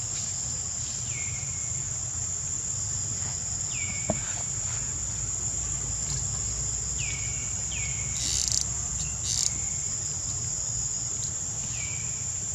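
Steady high-pitched drone of insects, with short falling chirps every second or two and two brief hissing bursts past the middle.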